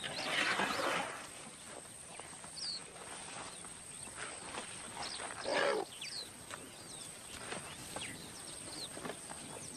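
Sounds of African elephants around a newborn calf: a short, rough, noisy burst at the start and another about five and a half seconds in, with faint short high chirps in between.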